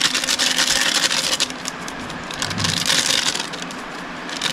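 Plastic spice packet crinkling and rustling as masala powder is shaken out of it onto raw chicken in an aluminium pot. The crackly rustle comes in spells, easing off briefly twice.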